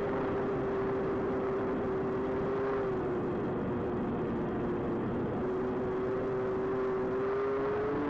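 Twin electric motors and propellers of an AtomRC Swordfish FPV plane, heard from on board as a steady droning tone over a constant rush of wind. The tone weakens for a couple of seconds in the middle and rises slightly in pitch near the end as the throttle is opened.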